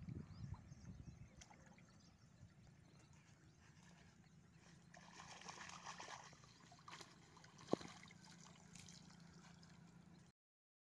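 Faint water splashing and trickling as a bag is dipped into the shallows and emptied, loudest in the middle. A single sharp click stands out a little later.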